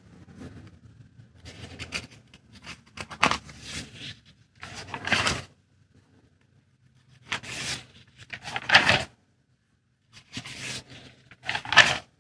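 Pages of an old paper magazine being turned and smoothed by hand, a series of short paper rustles a second or two apart.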